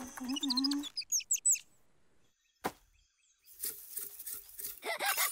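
Cartoon sound effects: a low sliding tone, then a quick run of high chirps, a single sharp click, and a ragged rattle near the end.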